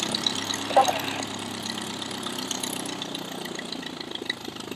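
Biplane's propeller engine idling steadily on the ground, with the propeller turning.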